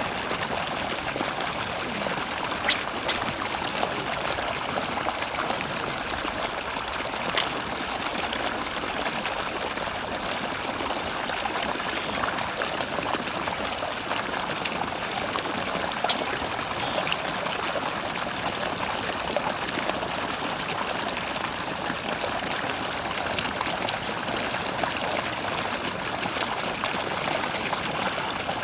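Steady rush of running water, with a few short sharp clicks scattered through it.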